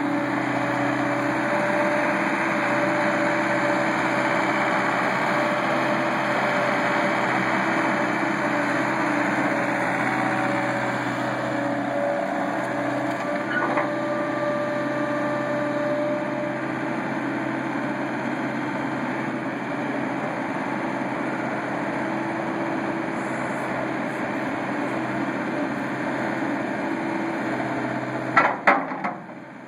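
2008 John Deere 317 skid steer's diesel engine running steadily. Near the end there are a few sharp knocks and the engine sound drops away.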